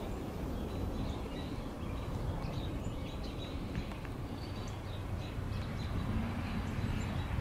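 Small birds chirping in short, scattered calls over a steady low rumble.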